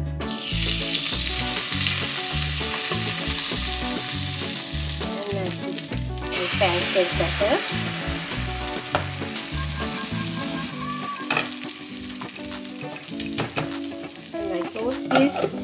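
Oat-and-spinach pancake batter sizzling in hot oil in a frying pan. The sizzle starts suddenly as the batter goes in, is loudest for about the first six seconds, then settles to a quieter fry.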